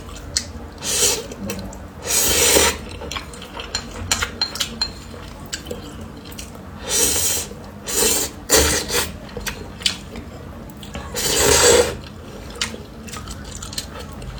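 A person slurping spicy instant noodles in about five long sucks, with short clicks of chopsticks against the bowl in between.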